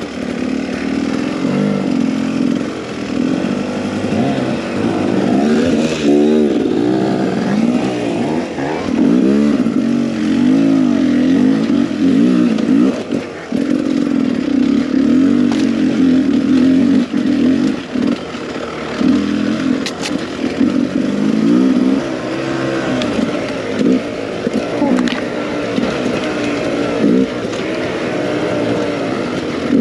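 Beta 300 RR two-stroke enduro motorcycle engine revving up and down, its pitch climbing and falling again and again as the throttle is opened and closed.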